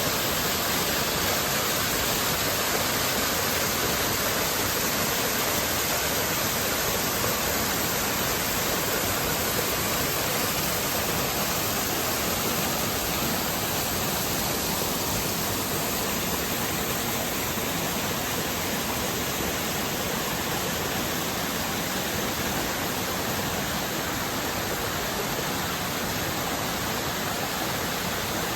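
A waterfall's water falling and splashing: a steady, unbroken rush.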